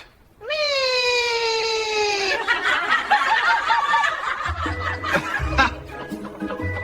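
A long drawn-out vocal cry slowly falling in pitch, then a group bursting into laughter. About four and a half seconds in, background music with a pulsing bass takes over.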